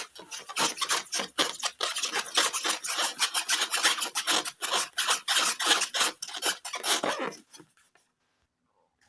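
Rapid, scratchy rubbing strokes, several a second, that stop abruptly about seven and a half seconds in.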